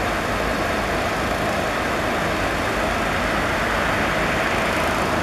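Diesel locomotive engines idling: a steady, even engine rumble.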